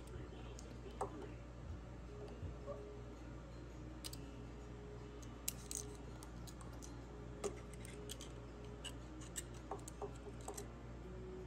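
Light metallic clicks and small scrapes of a caliper and a thin steel gauge being set against a rifle action, coming at irregular intervals over a faint, steady low hum.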